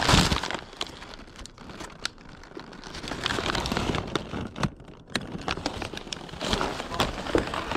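Paper wrapping crinkling and rustling as items are handled, with a louder knock right at the start and scattered light clicks and knocks through it.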